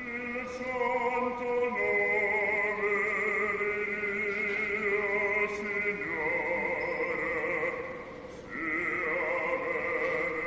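Operatic singing: long held notes with a wide vibrato. The sound drops away briefly about eight seconds in, then a new held note begins.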